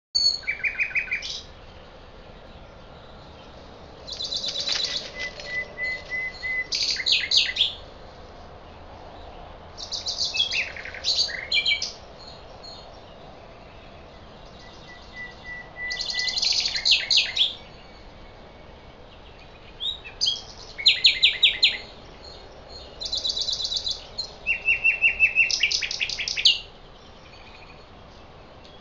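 Songbird singing in repeated phrases of rapid high notes and trills, each one to four seconds long with short pauses between, over a steady low background hiss.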